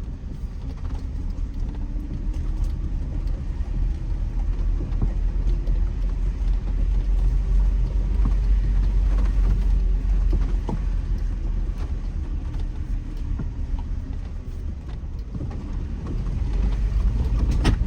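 2007 Jeep Wrangler JK's 3.8-litre V6 running as the Jeep crawls a rough dirt trail, heard from inside the cabin: a steady low rumble from the drivetrain and tyres, with the engine note slowly rising and falling and scattered knocks and rattles as it rides over bumps.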